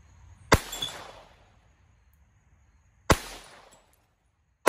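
Kel-Tec P17 .22 LR semi-automatic pistol firing: two sharp shots about two and a half seconds apart, then a third right at the end, each trailing off in a short echo.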